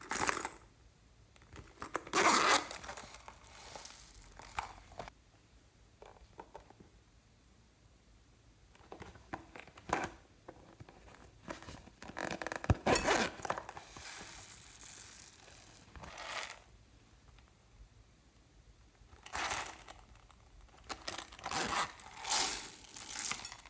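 Zippers on small vinyl coin purses and pouches being pulled open, a series of short rasping zips with pauses between them.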